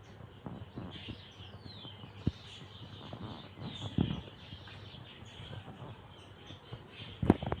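Birds chirping over a low rumbling background, with short sharp knocks about two, four and seven seconds in, the last one the loudest.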